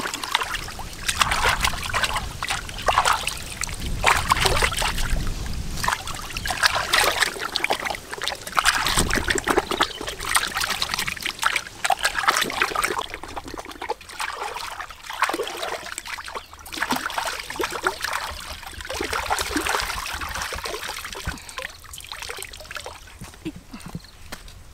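Water splashing and sloshing in irregular bursts as a large scored fish is rinsed and rubbed by hand in shallow water. The splashing thins out and grows quieter near the end.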